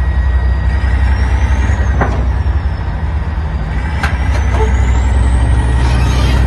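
Heavy diesel engine of a tracked vehicle running under load, a steady deep rumble with a thin high whine that rises and falls. Two sharp metallic knocks come about two and four seconds in.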